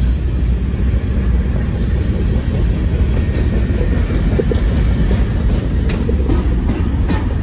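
Freight train of covered hopper cars rolling past: a steady low rumble of steel wheels on rail, with a few sharp clicks near the end as wheels cross rail joints.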